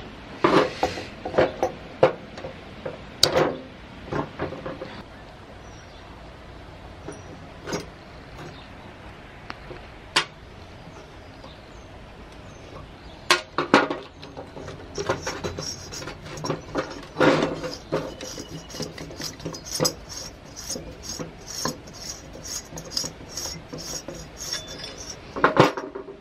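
Metal-on-metal clinks, knocks and scrapes from a screwdriver and the metal parts of a boiler water-level control being taken apart by hand. Scattered sharp clinks come in the first half, then a quicker run of small clicks and rattles.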